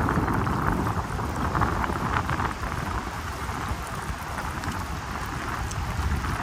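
Gusting wind rumbling on the microphone over the rush of a fast-flowing river, loudest in the first few seconds.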